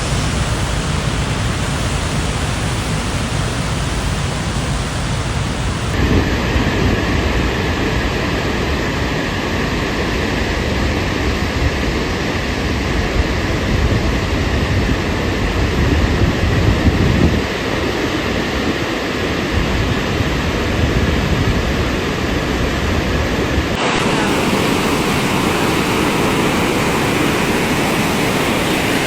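Loud, steady roar of rushing water, changing abruptly about six seconds in and again near the end as one stretch of footage gives way to another.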